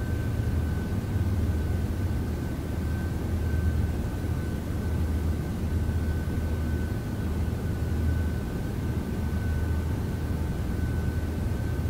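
A steady low mechanical hum with a thin, high-pitched whine held on one note above it and a light hiss, unchanging throughout.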